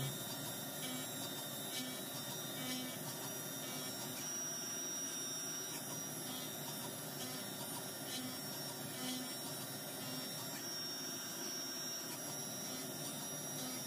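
Haas UMC 500SS five-axis CNC mill cutting facets on a copper shotgun slug with a carbide end mill under flood coolant. It makes a steady hiss of spraying coolant and machining, with a faint steady tone and a soft pulse repeating about once a second.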